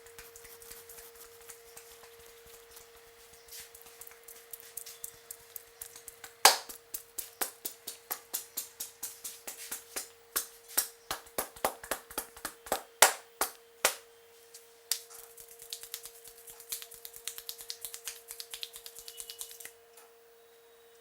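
Percussive hand strokes of a head massage: a run of loud, sharp slaps or claps about three a second, starting about a third of the way in and stopping about two-thirds through, followed by lighter, quicker tapping. A steady hum runs underneath.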